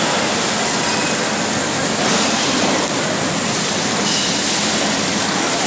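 Automatic water-bottling line machinery running: a steady, loud rushing hiss with no clear rhythm.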